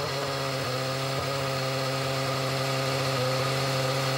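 2007 McLaren-Mercedes Formula One car's 2.4-litre V8 idling steadily, heard through the onboard camera while the car sits stopped in the tyre barrier after crashing, the engine still running.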